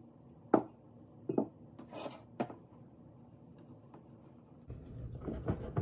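A few sharp knocks and clinks as the glass measuring cup and spatula meet a stainless steel mixing bowl. Then, near the end, a whisk starts stirring thick whole wheat pancake batter in the bowl in a quick run of scraping strokes.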